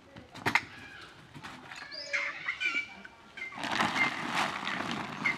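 Short high squeaking animal calls with wavering pitch, a few in the middle and more in the second half. There is a sharp click about half a second in.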